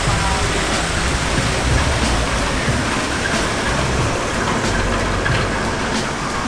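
Steady rushing noise with no clear pitch and a low rumble underneath.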